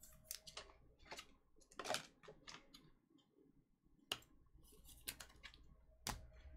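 Faint, scattered small clicks and taps of handling, with a few louder ones about two, four and six seconds in.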